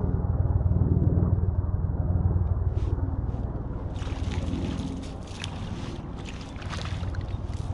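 Wind buffeting the microphone: a steady low rumble. From about four seconds in, a few light clicks and a faint hiss come over it.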